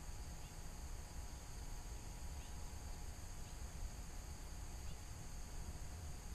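Faint outdoor lakeside ambience: a steady high insect drone over a low rumble, with a few faint short chirps now and then.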